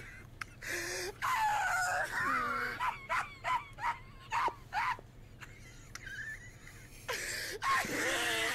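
Laughter: a drawn-out laughing voice, then a run of short bursts of laughs about three a second, and laughter again near the end.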